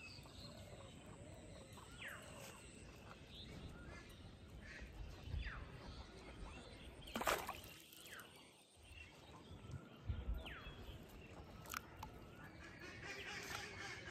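Faint outdoor ambience with birds calling: a few short falling whistles every few seconds. A sharp click about seven seconds in is the loudest sound, with a smaller click near the end.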